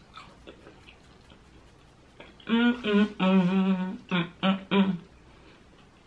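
A woman humming with her mouth closed while chewing: several short, held, pitched notes starting about two and a half seconds in, after faint chewing clicks.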